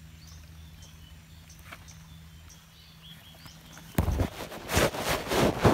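A few faint bird chirps over quiet forest background. About four seconds in, loud rustling and bumping starts suddenly as the phone's microphone is handled and rubbed.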